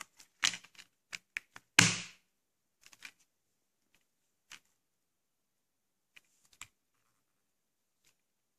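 Plastic Blu-ray case being handled: a quick run of clicks and taps, the loudest a short scraping noise about two seconds in, then a few scattered clicks.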